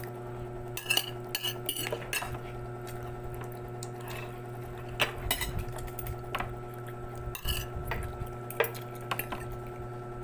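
A metal spoon and fork clinking and scraping against a dish in short, irregular clinks while someone eats. A steady low hum runs underneath.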